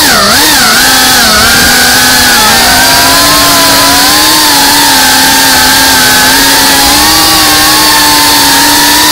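GEPRC FPV quadcopter's brushless motors and propellers whining loudly, heard through the onboard camera. The pitch dips about a second in, then holds fairly steady with small rises and falls as the throttle changes.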